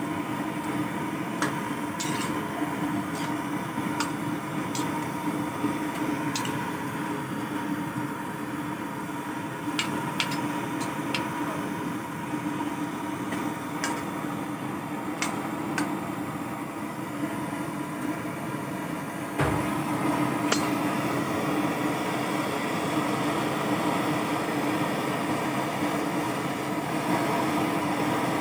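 Metal spatula clicking and scraping against an aluminium wok as chicken pieces are stirred, over a steady mechanical hum. A single dull knock comes about two-thirds through.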